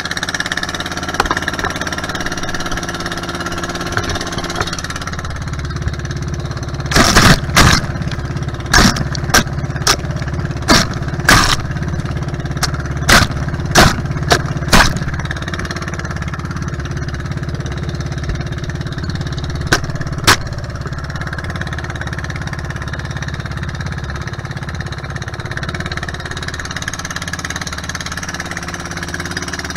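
Outrigger boat's engine running steadily under way, with water rushing past. Between about seven and fifteen seconds in comes a run of about a dozen sharp knocks, and two more around twenty seconds.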